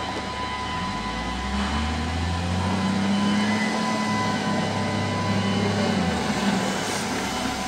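Volvo L60F wheel loader's diesel engine running as the loader drives, revving up about two and a half seconds in and settling back down around six seconds.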